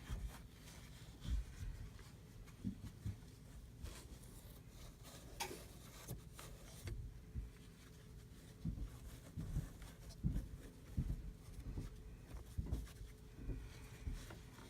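Soft, irregular low thumps and a few faint clicks of small foam pieces being pressed into place around a model in a foam-lined toolbox case, with a faint steady hum underneath.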